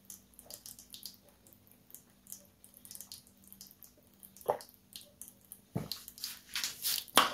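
A person drinking water from a glass: soft gulps and small wet clicks, a few louder near the end, over a faint steady hum.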